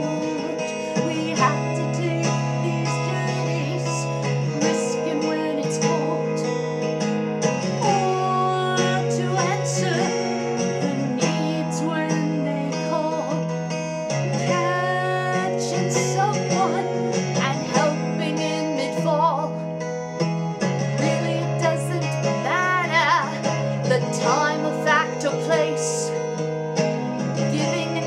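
Acoustic guitar strumming steady chords while a voice sings a folk-style carol.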